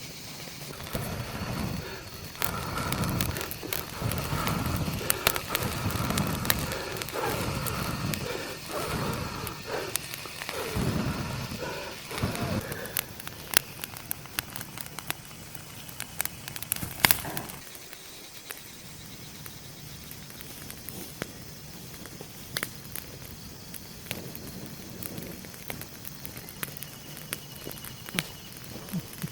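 Campfire crackling with scattered sharp pops, over a steady high chirring of night insects. Muffled voices are heard through the first half, then stop.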